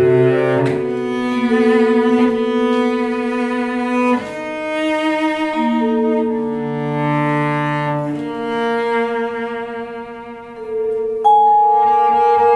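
Contemporary chamber music for clarinet, cello, harp and percussion, played live: the cello bows slow, long-held notes that change pitch every second or two, against other held tones. The music grows quieter, then a new note comes in sharply near the end.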